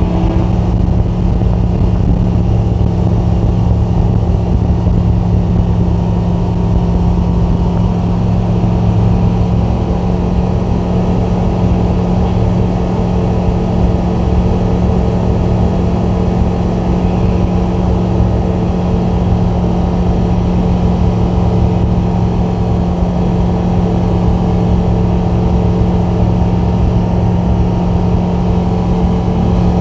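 Rotax 912 Xtra four-cylinder boxer engine and propeller of a light bushplane at takeoff power, a steady unchanging drone through the takeoff roll and climb-out.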